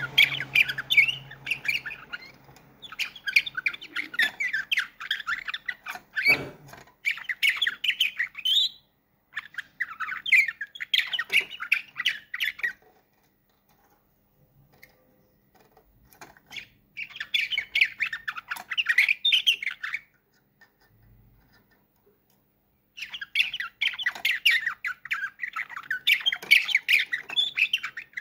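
Slavujar (nightingale-song type) canary singing in long phrases of rapid chirps and trills, with pauses of a few seconds between phrases.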